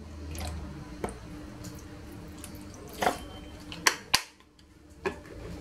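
A plastic bottle of lemon juice handled over a glass bowl of marinating meat: a pour, then a few separate light clicks and knocks as it is capped and put down, over a faint steady hum.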